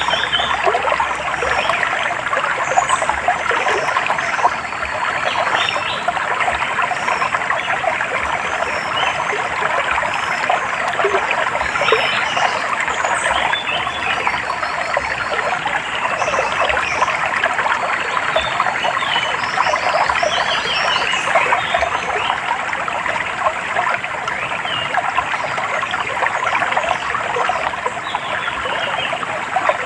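A small stream or water trickle babbling steadily, with birds chirping and trilling now and then over it.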